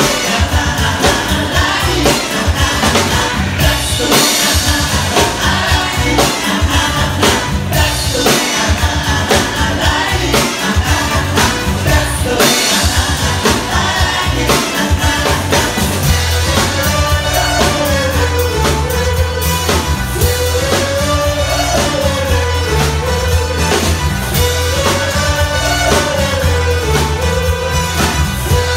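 Pop-dance music from a cover band: singing over a steady beat with a strong bass line. About halfway through, a melodic figure starts rising and falling about every two seconds.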